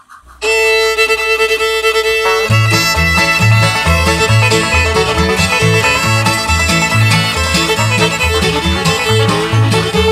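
Background music: an upbeat bluegrass-style tune led by fiddle, starting about half a second in, with a steady rhythmic bass line joining at about two and a half seconds.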